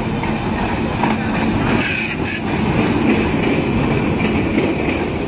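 Diesel locomotive and its passenger coaches rolling into a station, wheels clattering over the rail joints. From about two seconds in there is a thin, steady squeal from the wheels as the train slows to arrive.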